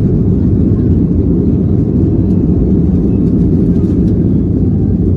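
Boeing 737-800's CFM56-7B jet engines at takeoff thrust, with the wheels rumbling on the runway, heard from inside the cabin during the takeoff roll: a loud, steady low rumble.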